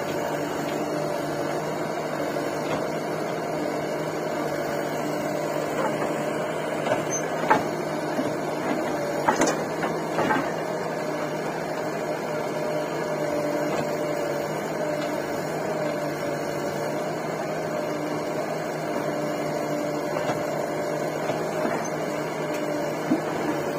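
Diesel engines of a tractor and a JCB 3DX backhoe loader running with a steady drone. A few sharp knocks come near the middle, as the backhoe works the mud.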